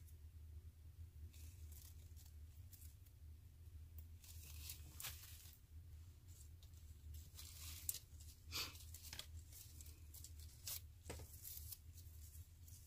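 Faint, scattered tearing and crinkling as store tags are peeled off artificial floral stems, with rustling of the plastic stems being handled. A low steady hum runs underneath.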